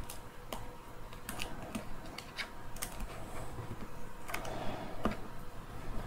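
Irregular small clicks and ticks of plastic and a thin tool as the BMS circuit board of an electric scooter battery pack is prised out of its plastic holder.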